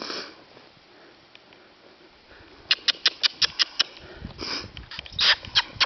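A handler clicking with the tongue in quick runs, about six clicks a second, to urge horses on; the clicks start about halfway through, with short breathy noises between the runs.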